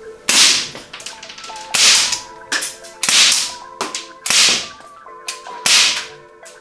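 Umarex Ruger Super Hawk 8-inch CO2 airsoft revolver firing 6 mm BBs: five sharp shots about a second and a half apart, each trailing off briefly, with a lighter click between some of them.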